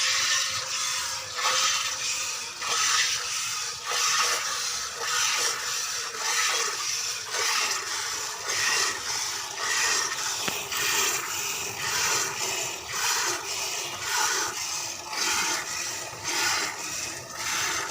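Rhythmic scraping or swishing strokes, a little more than one a second, repeated steadily.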